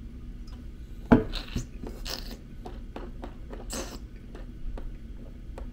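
A metal travel mug set down on a wooden table with a sharp knock about a second in, then wine being tasted in the mouth: two hissy slurps and a run of small wet lip smacks and clicks.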